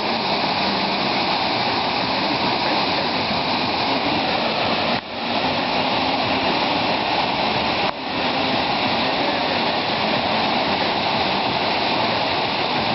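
A large waterfall's water rushing steadily in a dense, even wash of noise, dipping briefly twice, about five and eight seconds in.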